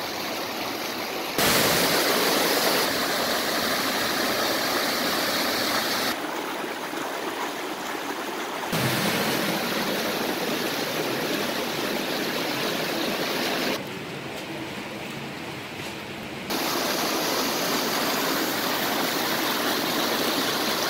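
Rushing water of a stream tumbling over a waterfall: a steady full hiss that jumps abruptly louder and softer several times as the shots change.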